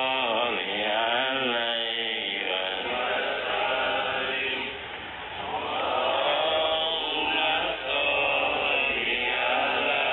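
Men's voices chanting prayers, drawn-out and wavering in pitch, with several voices overlapping at times.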